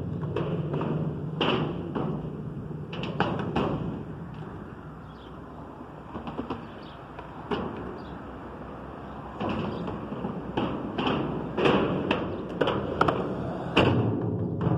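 Skateboard rolling on a skatepark ramp: a low rumble of the wheels on the surface, broken by many sharp clacks and thuds of the board hitting the ramp. The rolling dies down for a few seconds in the middle, then comes back with a run of hard impacts.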